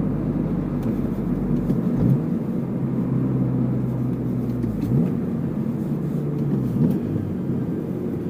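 Acura CSX engine running while driving, heard from inside the cabin over road rumble. The engine note swoops up sharply three times, about two, five and seven seconds in, as the revs change with gear shifts.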